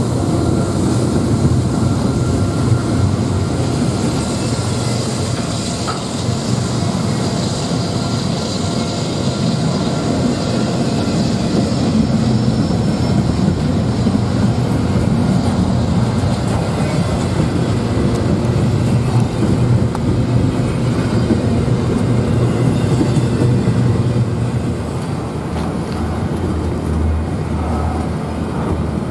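Double-stack intermodal container freight train passing close by at speed: steady, loud noise of steel wheels rolling on the rails, with some clickety-clack over the rail joints.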